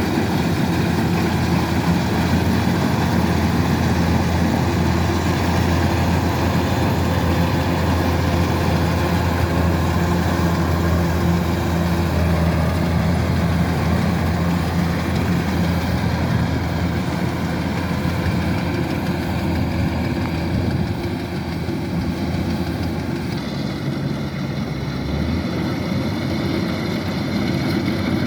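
Kubota DC-105X combine harvester running with a steady low engine drone. The drone eases slightly about three-quarters of the way through.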